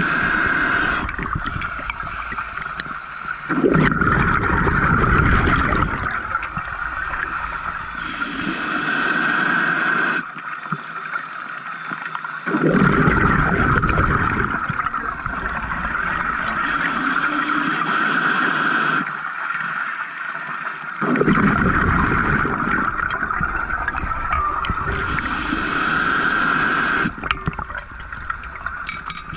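Scuba diver breathing underwater: the regulator's exhaled bubbles gurgle in three bursts of two to three seconds, about eight or nine seconds apart, over a steady high hum.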